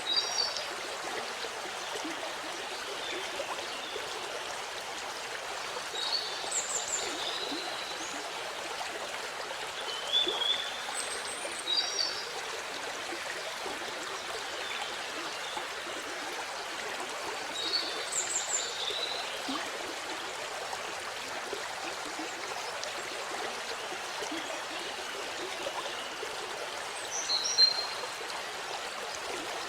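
Waterfall water rushing and splashing steadily, with a songbird chirping short bursts of high calls every few seconds.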